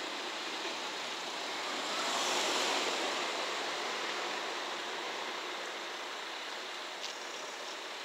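Steady rushing noise of a JR West 113 series electric train rolling away along the tracks. It swells about two seconds in, then slowly eases off.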